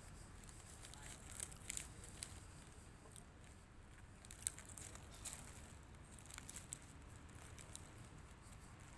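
A bakery pie being bitten and chewed, with faint scattered crackles of flaky pastry and crinkling as it is handled.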